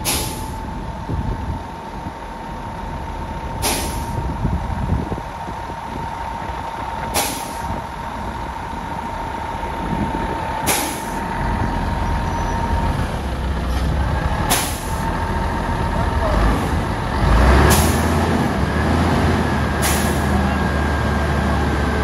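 Self-propelled modular transporter (SPMT) machinery running under a heavy load. A low engine drone grows louder after the middle, a steady high tone sounds through the first two-thirds, and short air hisses come about every three to four seconds.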